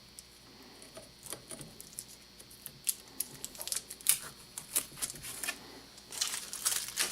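Scotch tape being peeled off a rifle, a run of irregular sharp crackling ticks that grows busier near the end.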